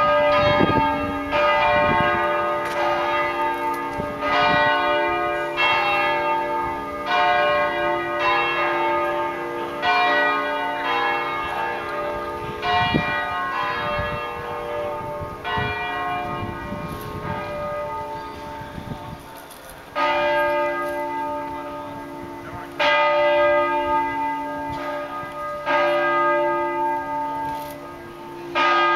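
The five balanced, swinging bronze church bells of the Basilica di San Francesco, tuned D, F, G, A and C and mostly cast by the Brighenti foundry, ringing in the Bolognese style. Strokes come about a second apart and slowly fade over the first twenty seconds, then louder strokes sound together about every three seconds.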